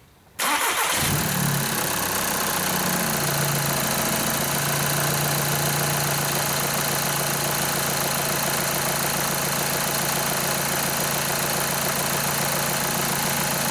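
Volkswagen 2.0-litre TDI four-cylinder diesel engine cranking and catching almost at once, about half a second in. It runs unevenly for a couple of seconds, then settles to a steady idle. It starts now that its low-pressure fuel supply pump is running again after a no-start caused by low fuel pressure.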